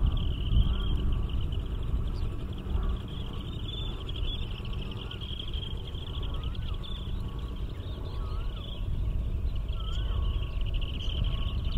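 Outdoor wetland ambience: a low rumble, a steady high buzzing trill, and a short rising-and-falling chirp repeated every second or two.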